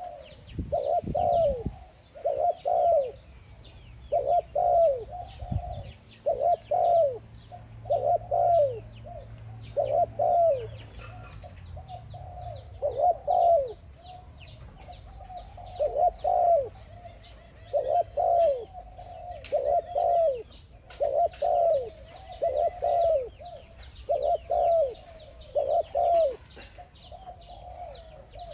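Spotted dove cooing over and over: short two-note coos that fall in pitch, one phrase about every one and a half to two seconds.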